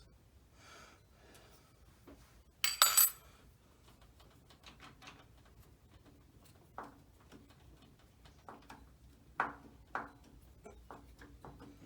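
Metal hand tools and engine parts clinking and tapping. One loud, ringing metallic clink comes about three seconds in, followed by scattered lighter clicks and taps.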